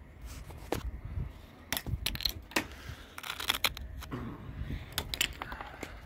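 Scattered light clicks and knocks at irregular intervals over a low rumble, typical of a handheld camera being handled.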